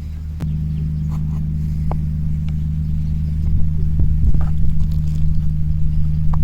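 A steady low mechanical hum that gets louder after a click about half a second in, with light clicks and taps over it.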